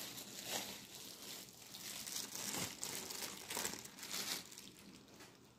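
A thin clear plastic bag crinkling in repeated bursts as a ball of fufu is unwrapped from it and slid onto a plate, dying down near the end.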